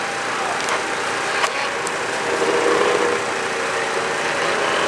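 Snowmobile engines running at a distance under a steady outdoor hum, one briefly coming up in pitch about halfway through, with a few faint clicks.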